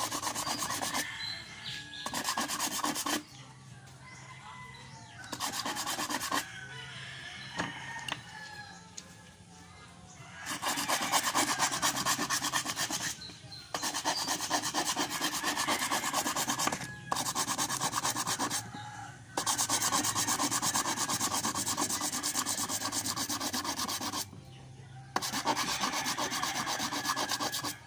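Rapid abrasive rubbing strokes on metal, in runs of one to four seconds with short pauses between them: hand sanding to even out starter-motor contact faces that no longer sit flat.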